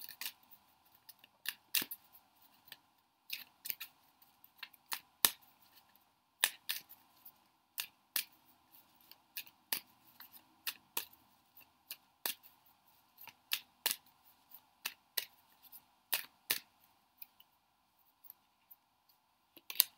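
A deck of Tarot de Marseille cards being shuffled by hand: a string of short, sharp card clicks and slaps coming irregularly, a few a second at times.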